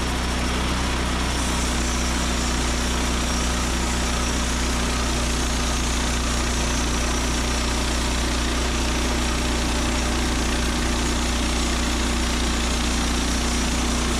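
Woodland Mills HM130Max portable band sawmill's gas engine running steadily, with the band blade spinning on freshly replaced blade guide bearings.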